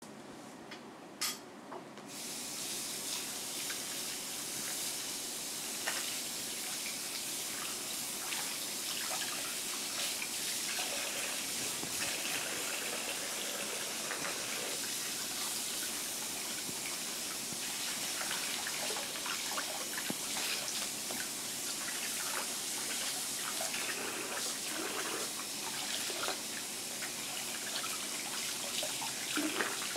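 Water running from a tap into a bathroom sink and splashing as hands wash under it. The flow starts about two seconds in, just after a single click.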